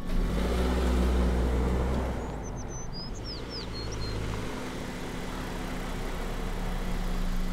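Car engine running as a red SUV drives up slowly, a heavy low rumble for the first few seconds settling into a steadier hum. A bird chirps a few times about three seconds in.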